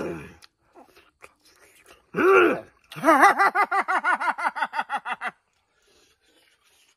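A man's loud wordless vocal outburst: a short cry, then a rapid warbling string of about twenty pulsed 'ah-ah-ah' sounds lasting about two seconds. Faint chewing clicks come before it.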